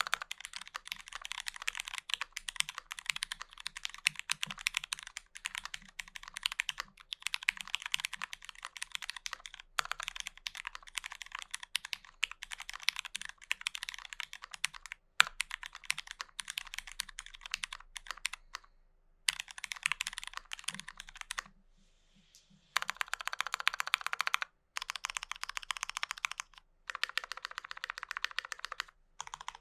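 Typing on a Bitmap Studios Alpine65 mechanical keyboard with lubed, filmed Cherry MX Brown tactile switches on an aluminum plate, under GMK keycaps: a fast stream of keystrokes with short pauses. Past the middle there is a break of about a second, then a few runs of very rapid repeated key presses.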